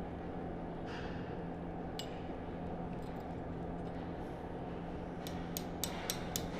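Steady hum, then from about five seconds in a run of light metallic taps, about four a second: a steel gib key being tapped into the keyway of a pump's drive coupling.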